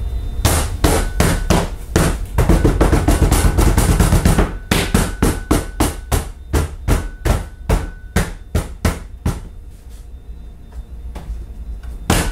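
Repeated knocking on a workpiece to press it down onto tape on a CNC machine bed: a fast flurry of strikes about two seconds in, then single knocks about two a second, pausing near the end and starting again just before it ends.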